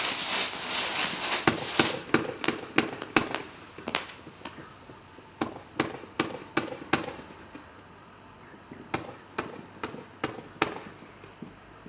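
Black Cat 'Majestic Finale' firework cake firing a rapid string of shots: about twenty sharp launch and burst reports, with a dense hiss over the first two seconds. A lull of about two seconds comes after the seventh second, then a few more shots follow.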